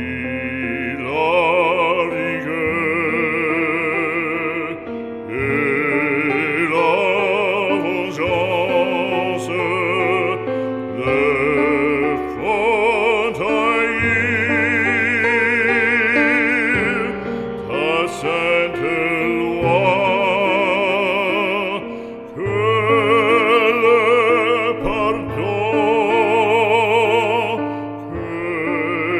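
Operatic singing with a wide vibrato, held and moving notes over a sustained instrumental accompaniment.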